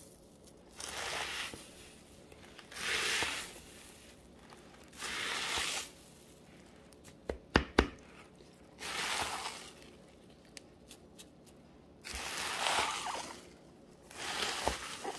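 Spoon stirring crisp rice cereal coated in melted marshmallow and butter, a sticky rustling stroke about every two seconds. Two sharp knocks about halfway through.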